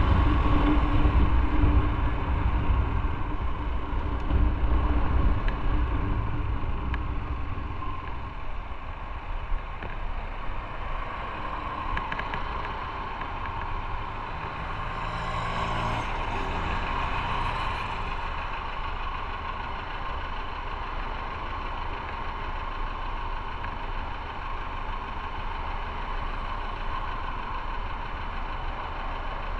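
Motorcycle engine running with rumbling road and wind noise that dies away over the first several seconds as the bike slows, then a steady idle. A short louder engine passage comes about halfway through.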